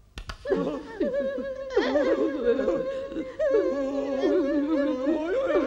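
A short click, then several overlapping wordless voices wavering up and down, somewhere between laughter and singing.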